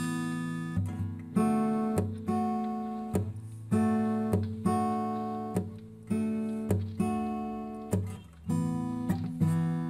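Background music on acoustic guitar: chords plucked or strummed one after another, each ringing out and fading before the next.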